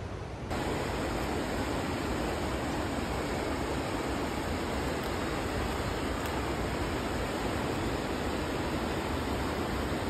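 A steady, even rushing noise that begins abruptly about half a second in and holds unchanged, with no distinct knocks or voices in it.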